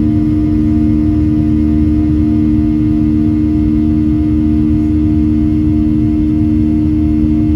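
Boeing 737-700's CFM56-7B turbofan engines at climb power, heard inside the cabin just after takeoff. It is a steady, loud drone: a low rumble with a pair of strong, steady hum tones running through it.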